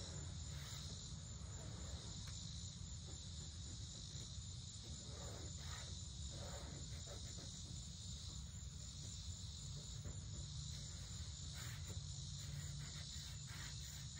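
Steady chorus of insects, a continuous high-pitched chirring, over a low hum, with a few faint brush strokes of paint on the door.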